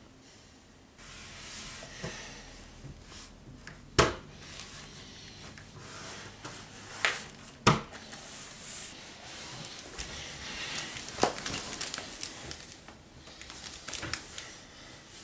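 Rustling and rubbing of a person moving about, broken by two sharp knocks about four and eight seconds in and a lighter one later.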